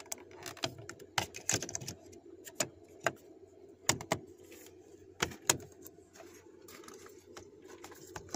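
Hard plastic door-trim pieces clicking and tapping as a door-handle cover is handled and pressed onto its clips: a scatter of sharp, separate clicks, most of them in the first six seconds, over a steady low hum.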